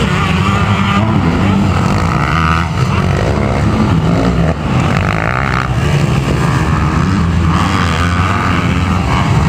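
Motocross dirt bike engines running hard and revving continuously during a race.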